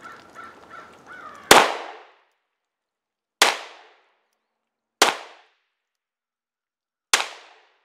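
Four single 9mm pistol shots from a Polymer80 Glock 19-pattern pistol, fired one at a time about two seconds apart, each a sharp crack with a short echo.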